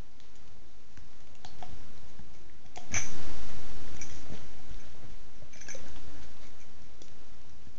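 Doberman gnawing a hard chew bone: scattered clicks and scrapes of teeth on the bone, with one louder knock about three seconds in.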